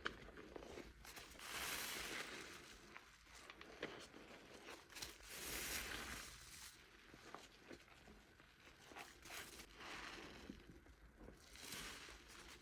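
Thick soap foam squishing and crackling, faint, in swells a few seconds apart with small pops.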